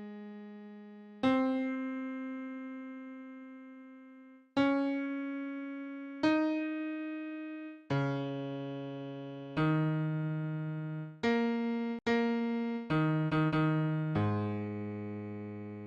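Electronic keyboard with a piano sound playing the bass part of a choral song, one low note at a time: each note is struck and left to fade. The notes come about a second and a half apart at first and then quicker, in a short run of close notes near the end.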